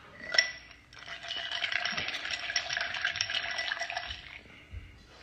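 Ice cubes clinking and rattling in a drinking glass as it is tipped up to drink and lowered. A single sharp clink comes about half a second in, then a dense run of small clinks lasts about three seconds.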